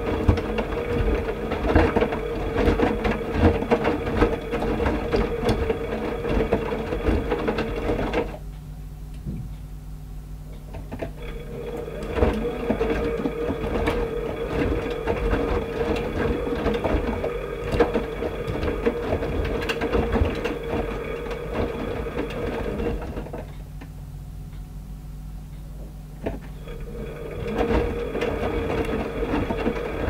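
AEG 8000 Series Lavamat front-loading washing machine tumbling a small load: the drum motor runs with a steady hum while the laundry turns in the drum, stops twice for a few seconds, and starts turning again each time.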